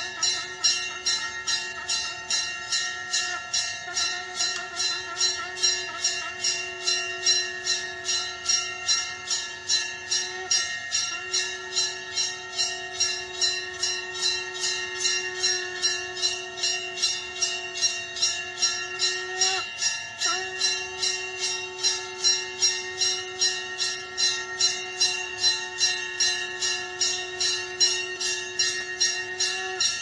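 A conch shell (shankh) blown in long, steady notes that break briefly for breath about ten seconds in and again near twenty seconds, over a temple hand bell rung rapidly at about three strikes a second.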